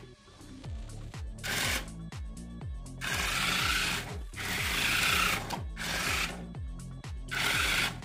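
Small electric gear motors of a brick-built toy robot whirring in several short bursts as it drives and turns on its tracks. Background music with a steady thudding beat plays under it.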